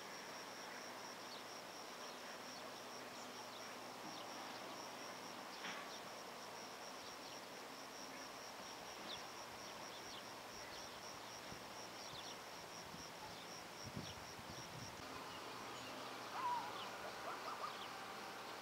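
Cricket chirping, a steady high pulsed note about four times a second that stops about fifteen seconds in, over faint outdoor hiss with a few short high chirps.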